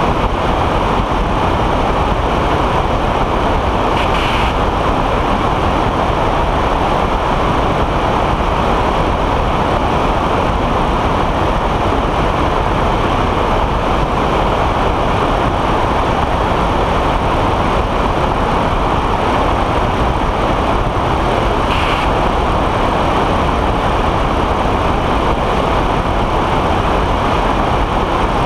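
Weight-shift ultralight trike in cruising flight: its rear-mounted engine and pusher propeller running steadily under a loud rush of wind over the microphone.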